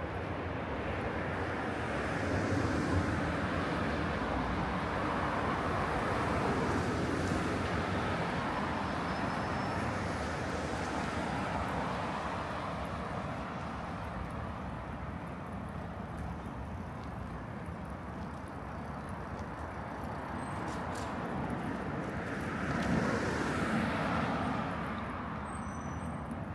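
City street traffic: a steady hum of vehicles with two louder cars passing, one a few seconds in and one near the end.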